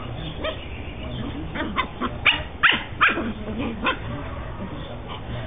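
Dogs play-fighting: a run of about seven short, high yips and barks in quick succession.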